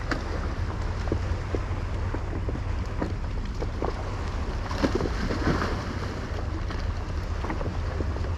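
Wind buffeting the microphone on a small boat on the water, a steady low rumble, with scattered light knocks and clicks throughout.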